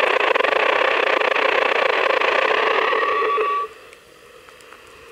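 Spirit Box radio scanner sweeping the bands, giving a steady hiss of radio static. A short steady tone comes in just before the static cuts off suddenly about three and a half seconds in.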